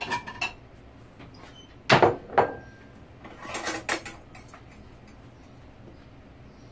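A ceramic plate and dishes knocking and clinking on a kitchen countertop as a plate is set down, in a few separate knocks; the loudest pair comes about two seconds in, with a short ring after it, and a cluster follows a second later.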